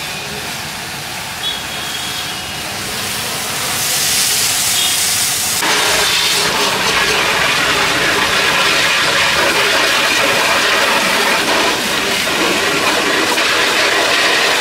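High-pressure washer spray gun jetting water onto a car's muddy bodywork, a hiss. It is patchier at first and turns into a steady, louder spray about six seconds in.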